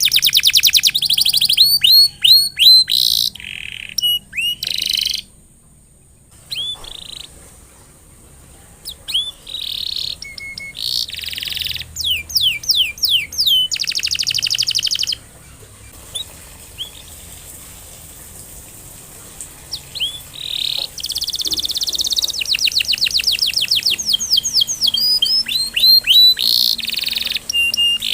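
Domestic canary in full song: fast trilled phrases of repeated, quickly falling notes, broken by two quieter pauses.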